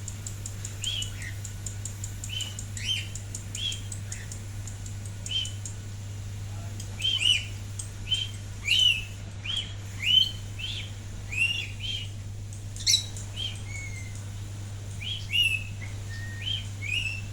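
Rainbow lorikeets chirping: short, high, arched chirps, each rising then falling, at irregular intervals and most frequent in the middle stretch, over a steady low hum.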